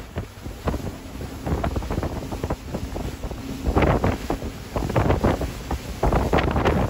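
Wind buffeting the microphone on a boat running at speed, over the rush of its wake. The buffeting comes in gusts, quieter at first and louder from about four seconds in and again near the end.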